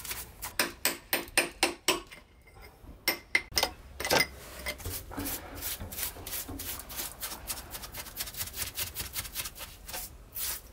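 Claw hammer striking a mason chisel against concrete in a run of sharp taps over the first four seconds, chipping at the corner. A hand brush then scrubs the concrete in quick back-and-forth strokes, several a second.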